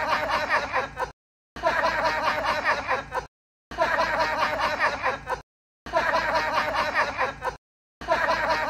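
A short clip of a person chuckling, repeated over and over: about five identical bursts of a second and a half each, separated by brief gaps of dead silence.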